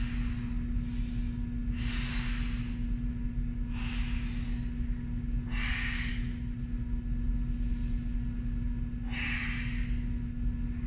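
A woman breathing hard in and out, about one breath every two seconds, paced to her leg lowers and raises in a core exercise: inhaling as the legs lower, exhaling as she pulls them back up. A steady low hum runs underneath.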